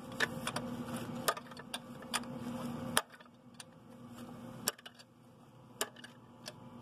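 Sharp metallic clicks of a 17 mm wrench being worked on a turbocharger mounting bolt, coming every third to half second at first and only now and then after about three seconds. A low background hum cuts off suddenly about three seconds in.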